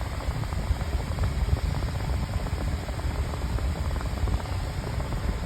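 O2cool 10-inch box fan running on high speed off its AC adapter: a steady whooshing rush of air with motor hum, kind of noisy.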